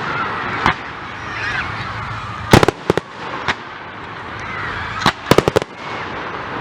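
Fireworks bursting: separate sharp bangs, then a quick run of several reports about five seconds in, over a murmur of crowd voices.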